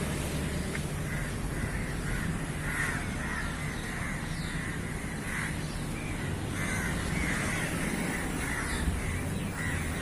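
A large flock of crows cawing, many calls overlapping without a break.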